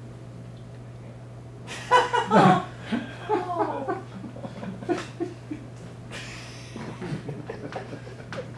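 Audience laughing and chuckling, starting about two seconds in and trailing off into scattered laughs, over a steady low hum.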